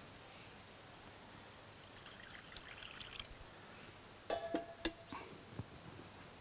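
Faint stirring and scraping of a thick cornflour muscat (halwa) mixture in a wok with a spatula. A brief ringing tone and a few sharp clicks come a little over four seconds in.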